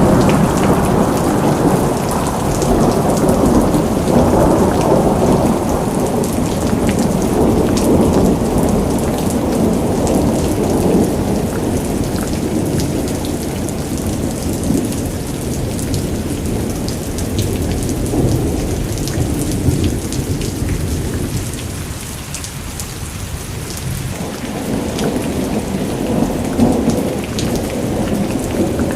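Heavy rain falling and pattering on surfaces, with a continuous low rumble underneath that swells and eases, dipping briefly about two-thirds of the way through.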